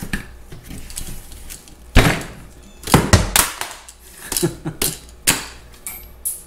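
A series of sharp metal knocks and clicks as a screwdriver works against a Zenith tractor carburetor body, forcing out the plug at the end of the throttle shaft. The loudest knock comes about two seconds in, with more about three seconds in and lighter ones after.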